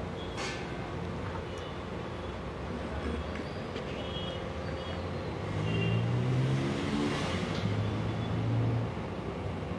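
Beaten eggs sizzling in oil on a hot iron griddle, with a few light clinks of a spoon and cup near the start. A motor vehicle's engine runs close by, getting louder from about halfway through for some three seconds, then dropping back.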